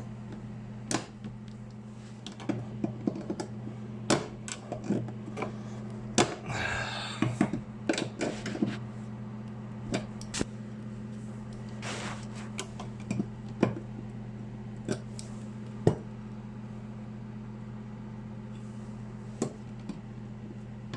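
Scattered small clicks, taps and scrapes of hand tools working a screw in a metal electrical box, with a longer rustling scrape about six seconds in, over a steady low electrical hum.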